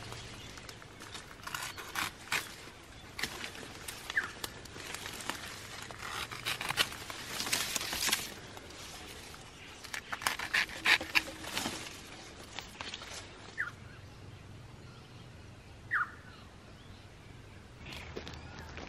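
Irregular crackling and rustling of dry leaves and twigs, busiest in two stretches, with three short rising bird chirps.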